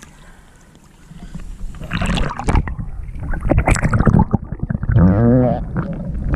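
Water sloshing and splashing with sharp knocks and handling noise. A brief wavering pitched sound comes about five seconds in.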